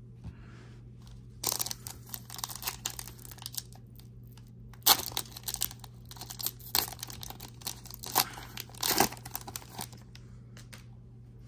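Plastic wrapper of a Panini Prizm football card pack being torn open and crinkled by hand, in irregular crackling bursts. The loudest bursts come about five seconds in and again near nine seconds.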